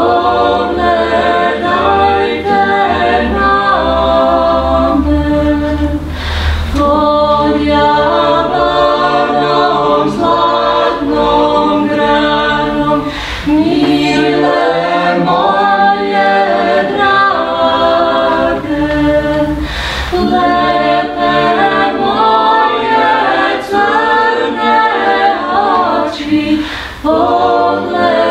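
Small mixed vocal ensemble of women's and men's voices singing a cappella in several parts.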